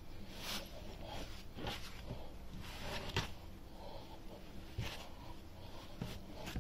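Hands kneading a large mass of bread dough on a table, pressing and folding it to strengthen it: faint, irregular soft thuds and rubbing about every second or so.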